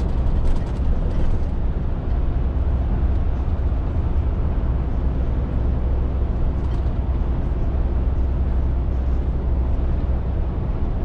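Steady low drone of a Scania R450 articulated lorry driving, heard from inside the cab: its 13-litre straight-six engine running with road noise. A few light ticks come about half a second to a second and a half in.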